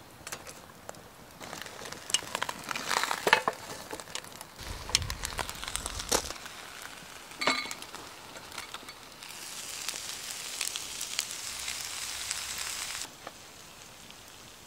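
Fried rice sizzling in a hinged double-sided grill pan over a wood fire, with scattered crackles and clicks. A steadier sizzle starts about two-thirds through and stops suddenly near the end.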